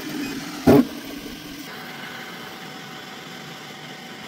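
Anycubic Kobra 2 Max 3D printer's stepper motors humming steadily, with a sharp tap about three-quarters of a second in; about a second later the motor hum cuts out as the print is stopped, leaving the steady whir of the printer's fans.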